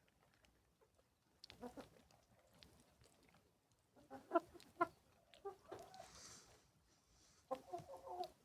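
Hens clucking in short bursts of calls, several rounds of them, the loudest about halfway through.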